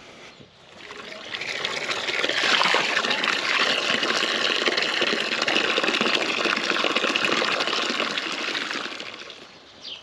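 Water pouring steadily as the cows' drinking water is topped up from a rain-water bin. It builds up over the first second or two and tails off near the end.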